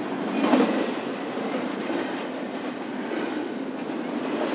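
Freight cars of an intermodal stack train rolling past, a steady rumble with wheels clattering over rail joints and a louder clatter about half a second in.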